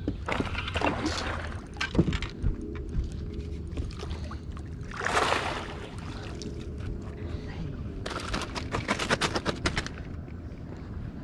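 A hooked bass being landed at the side of a boat: a splash as the fish breaks the surface about five seconds in, then about two seconds of rapid clattering knocks as it thrashes while being brought aboard, over a steady low hum.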